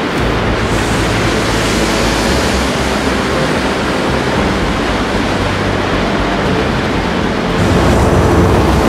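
Steady rush of cooling water pouring through the finishing stands of a hot strip mill, with a deep mill rumble that grows louder near the end.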